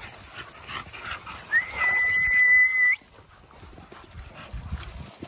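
Dog whining: one high, steady whine about a second and a half long, starting about one and a half seconds in and cutting off sharply.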